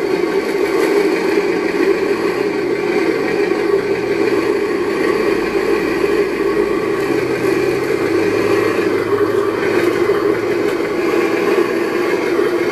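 Simulated engine sound from an RC sound module in a 1/10-scale Defender 90 model, played through a small speaker, running steadily with small shifts in pitch.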